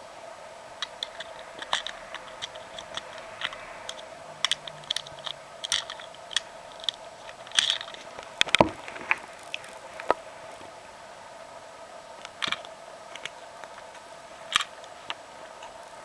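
Sharp clicks and taps of hard plastic as the parts of a Plarail toy train are handled: the car body, motor unit and battery sleeves. The clicks come scattered and irregular, with a louder clack about eight and a half seconds in, over a steady faint hum.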